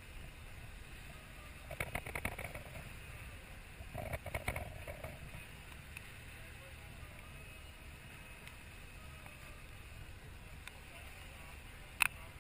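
Sportfishing boat's engine running steadily, with two short bursts of rattling clicks about two and four seconds in and a single sharp click near the end.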